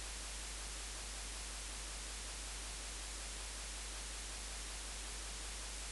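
Steady hiss of the recording's background noise with a low, constant hum underneath; nothing else sounds.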